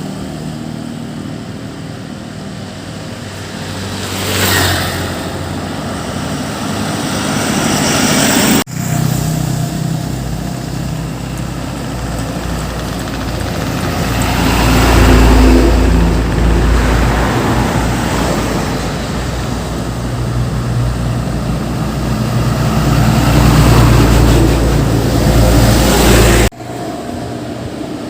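Heavy truck engine running and revving, a deep rumble that grows louder in the second half. The sound breaks off abruptly twice, about a third of the way in and near the end.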